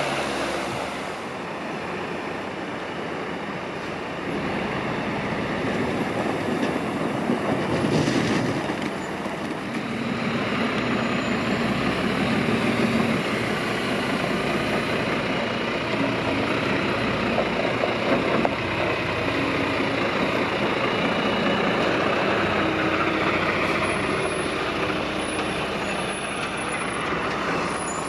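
Tatra Phoenix heavy truck's diesel engine running steadily as it drives, with tyre and road noise, and a brief louder rush about eight seconds in.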